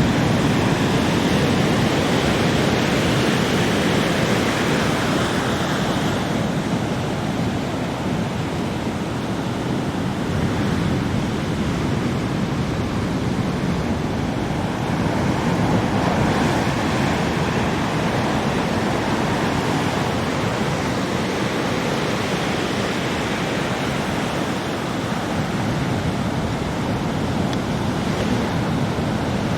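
Heavy ocean surf: big waves breaking continuously in a dense, steady rumble that swells and eases slightly. Strong wind is mixed in.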